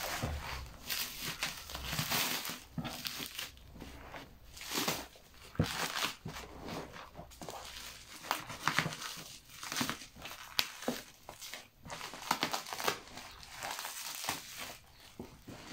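Plastic stretch film and bubble wrap crinkling and tearing as it is cut and peeled off a cardboard box, with irregular crackles and rustles throughout.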